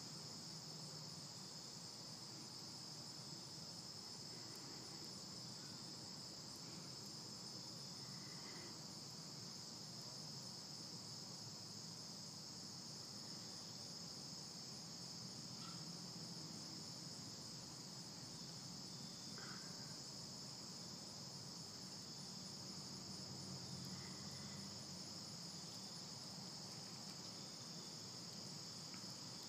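Crickets trilling in a steady, high-pitched, unbroken chorus.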